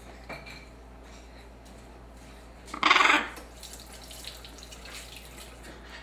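A Shamrock macaw chick gives one loud, harsh squawk of about half a second, midway through.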